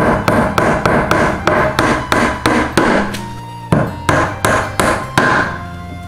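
A hand hammer driving small nails into a wooden table frame in quick, even strokes, about three or four a second, with a short pause a little past halfway before the strokes resume.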